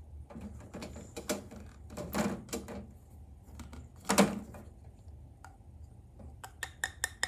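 Small objects being picked up and set down: a series of light knocks and clicks, one louder knock about four seconds in, and a quick run of clicks near the end.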